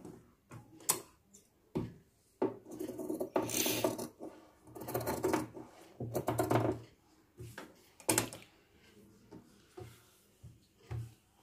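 Large tailor's scissors cutting through cotton fabric in several stretches, with the cloth rustling as it is handled. A few sharp clicks come between them.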